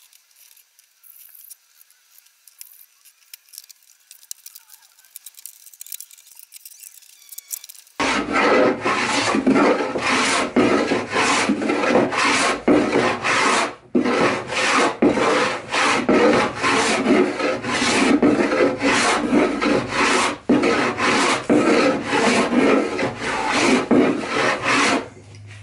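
Hand sanding a pine tabletop with a sanding block: loud back-and-forth rubbing strokes, about two a second with one short pause, starting about eight seconds in after faint workshop sounds.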